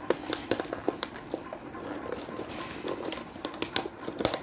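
Plastic blister packaging and cardboard backing card of a toy car being handled and opened: irregular crinkling with many sharp crackles.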